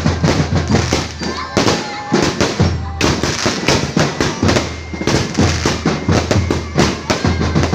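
Aerial fireworks going off in quick succession: a dense run of sharp bangs and crackling, several reports a second, with no pause.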